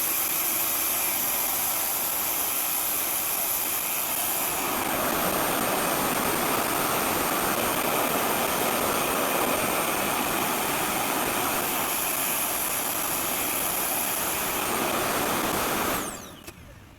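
RevAir reverse-air hair dryer running steadily, a loud suction-blower rush with a high whine, its sound shifting about four seconds in. It switches off about a second before the end.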